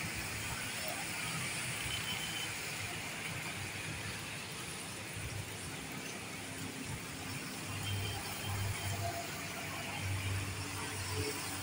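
Road traffic on a wet street: motorcycles and an auto-rickshaw passing over a steady hiss, with an engine hum growing louder in the second half.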